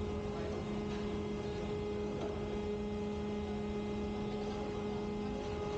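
Ship's electro-hydraulic steering gear running: a steady machinery hum with two strong constant tones over an even mechanical drone.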